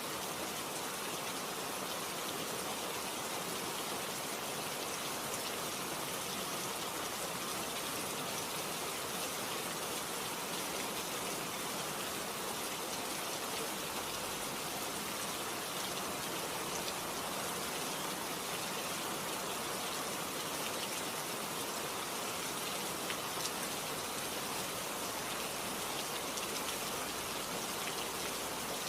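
Steady rain falling, a continuous even hiss with scattered drop ticks.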